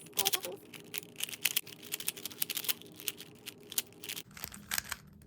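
Plastic 3x3 Rubik's cube being turned quickly while it is solved, its layers clicking and clattering in rapid, irregular bursts.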